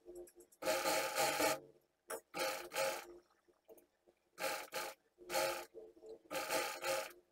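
Industrial sewing machine stitching through fabric in about six short runs, each under a second, stopping briefly between runs as the fabric is guided along.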